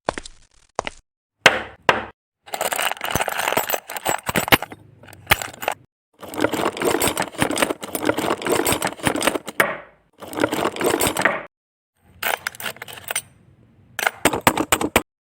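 Small plastic building bricks clicking and clinking together in several bursts of rapid clicks, each cut off abruptly, with a few separate sharp clicks near the end.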